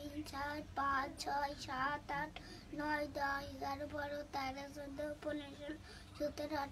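A young boy's voice reciting in a sing-song chant: short syllables on a nearly level pitch, one after another.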